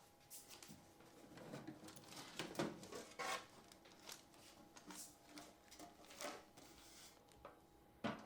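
Faint, irregular rustling, clicks and light knocks of hands handling a cassette deck and its loose parts.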